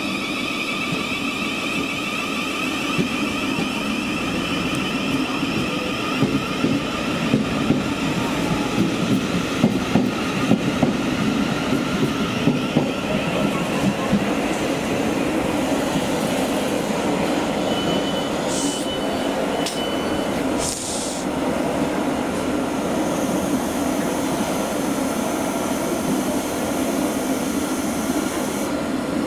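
Electric train running on rails: a steady rumble with a whine of several steady tones over the first few seconds, then a run of clattering knocks from about six to twelve seconds in, and a short high hiss a little after the middle.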